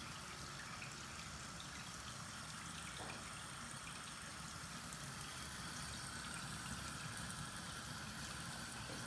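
Pot of potatoes in water heating on a gas stove, a steady faint hiss.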